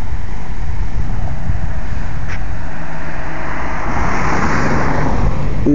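A car passing on the road, its tyre and engine noise swelling and fading about four seconds in, over a steady low rumble.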